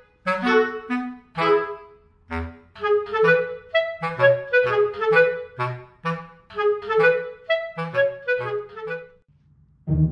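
Background music: a bouncy tune of short, detached notes over a plucky bass line, which stops about nine seconds in.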